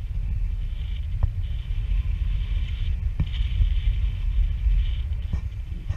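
Wind buffeting the microphone of a camera carried through the air on a paraglider flight: a steady low rumble with patchy hiss above it, and three faint ticks about two seconds apart.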